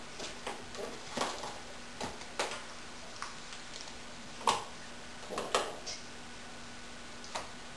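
Kitchen utensils and cookware being handled, giving a string of short, irregular knocks and clatters, the loudest about halfway through and a second later.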